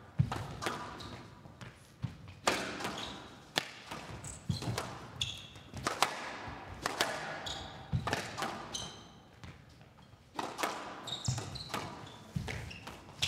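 Squash rally: the ball cracks off rackets and the court walls about once a second, each hit ringing briefly in the hall, with short high squeaks of players' shoes on the court floor between hits.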